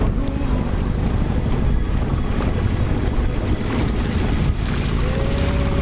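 Motorboat engine running steadily while the boat is under way, mixed with the rush of wind and water.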